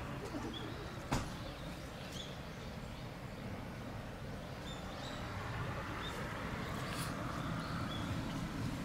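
Outdoor ambience: short, high bird chirps repeat every second or so over a low steady background rumble, with a single sharp click about a second in.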